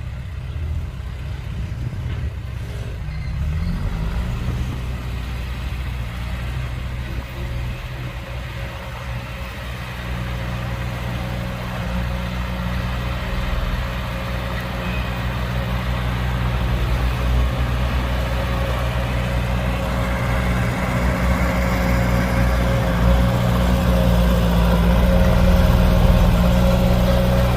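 Heavy diesel engine of an earthmoving machine running steadily, growing gradually louder.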